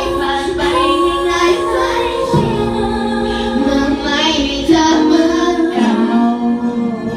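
Music with a high-pitched voice singing, holding long notes that step to a new pitch about every second.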